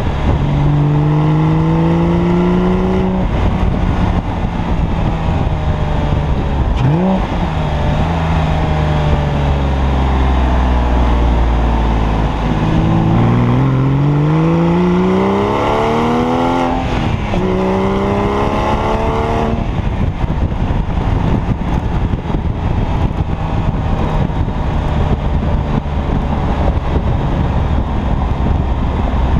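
A 2003 Porsche 996 Carrera's flat-six engine through "Gundo-Hack" modified mufflers, accelerating hard: its pitch climbs in several pulls, drops sharply at upshifts about a quarter and a half of the way in, then settles into a steadier, lower drone while cruising.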